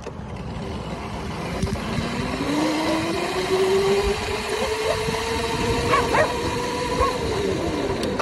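A Razor electric dirt bike's motor whines, rising in pitch as the bike picks up speed, then holds steady and dips slightly near the end. Wind rumbles on the microphone.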